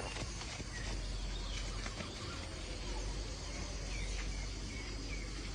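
Outdoor ambience: a steady hiss of insects over a low hum, with a few faint, short bird chirps.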